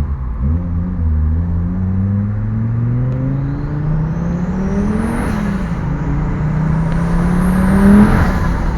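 Fiat Marea Turbo's turbocharged five-cylinder engine pulling hard under acceleration, its pitch rising steadily, dropping at a gear change about five seconds in, then rising again. Each time the throttle is lifted, about five seconds in and again near the end, there is a burst of turbo whoosh and hiss.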